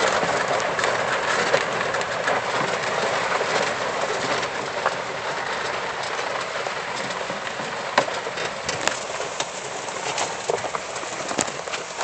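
Lifted E-Z-GO golf cart driving along a dirt trail: a steady rush of tyres rolling over gravel and dry leaves, with scattered clicks and rattles from the cart.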